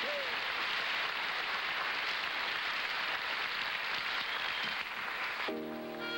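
Studio audience applauding steadily. About five and a half seconds in, the applause drops away and a jazz trio's clarinet and piano start playing.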